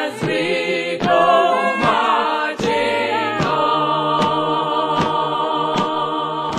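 A group of voices singing in harmony without instruments, settling about halfway through into one long held chord. A sharp beat sounds a little more than once a second throughout.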